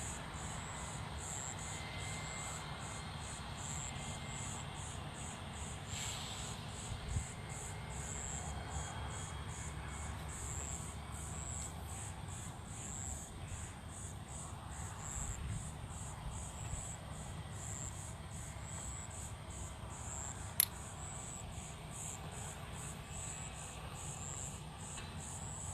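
Crickets chirping in a steady, even rhythm of high-pitched pulses, several a second. A single sharp click sounds about twenty seconds in.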